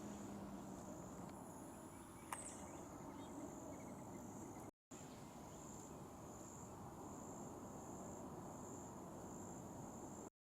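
A singing insect, cricket-like, trilling steadily at a high pitch, pulsing about twice a second in the second half, over faint outdoor background hiss. About two seconds in there is a sharp click with a short, high falling chirp, and the sound drops out briefly midway.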